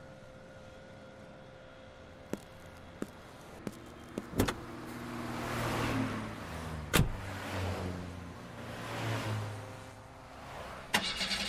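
Car door opening and shutting as someone climbs into the driver's seat: a few light clicks, then a sharp shut about seven seconds in, with passing traffic swelling and fading. Near the end a sudden louder noise comes in as the car's engine starts.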